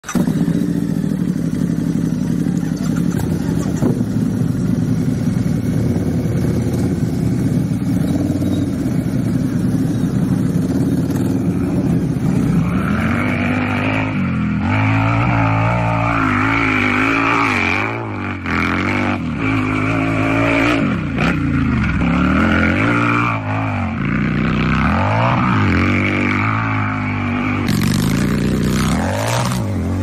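Harley-Davidson motorcycle's V-twin engine idling steadily for about twelve seconds, then revved over and over, each rev rising and falling in pitch. Near the end it revs harder as the bike speeds away.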